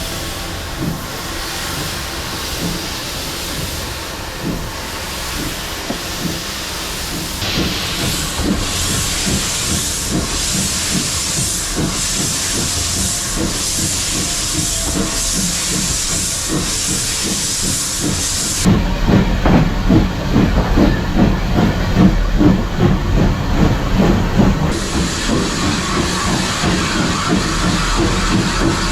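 Steam locomotive and train: steam hissing over the running train. The sound changes abruptly twice, and in the last third it takes on a pulsing rhythm.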